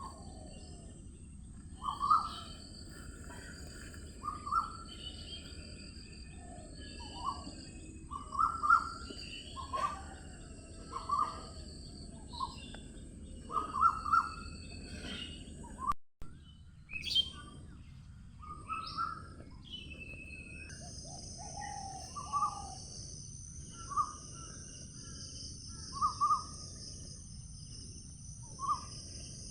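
Wild birds calling: a short, dropping call repeated every second or two, mixed with higher chirps, over a steady high buzz. The sound breaks off briefly about halfway through, and the high buzz grows louder and fuller a few seconds later.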